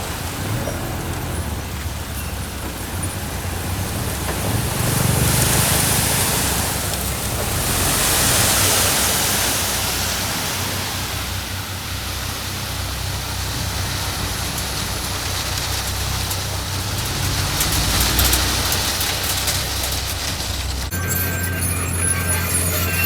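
Diesel earthmoving machinery working on gravel: a heavy engine running steadily under a broad rushing noise that swells louder twice. Near the end the sound changes abruptly.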